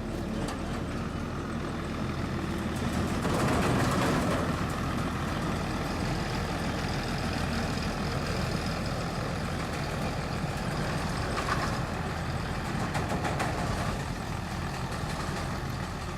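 Combine harvester engine running steadily at constant speed, a heavy machine's continuous drone, swelling a little about three to four seconds in.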